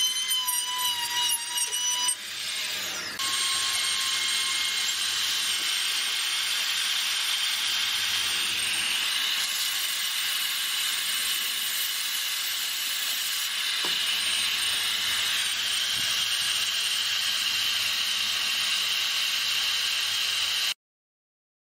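Hand-held electric rotary tool carving wood. A high motor whine comes first, then from about three seconds in a steady grinding noise, which cuts off suddenly near the end.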